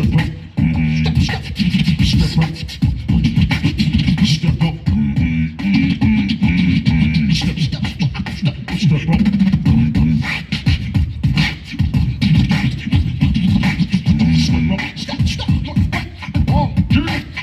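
Beatboxing through an amplified microphone: quick vocal drum clicks and hits laid over pitched low bass tones.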